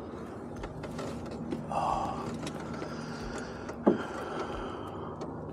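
Light mechanical clicks and handling noise from fishing tackle and the boat as a small bass is lifted aboard, with a brief rustle about two seconds in and one short falling squeak just before four seconds.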